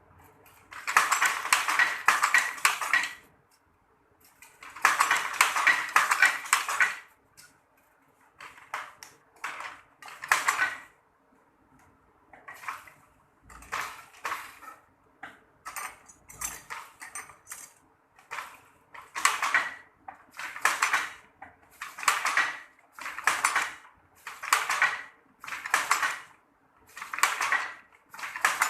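Traditional hand loom weaving sarong cloth, clattering in repeated bursts. Two longer rattles are followed by a steady rhythm of short clacks, about one every second and a half.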